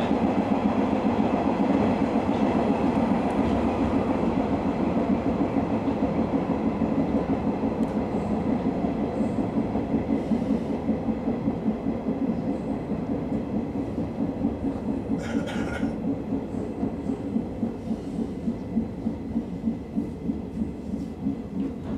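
JNR 103-series electric train's running noise heard from the driver's cab: steady rumble of wheels and motors on the track, gradually getting quieter as the train slows toward a station. A short hiss about two-thirds of the way through.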